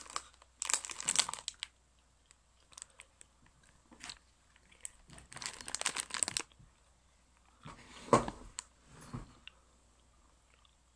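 A plastic bag of jelly beans crinkling in two bursts of crackling, while a soft jelly bean is chewed. A single thump comes about three-quarters of the way through.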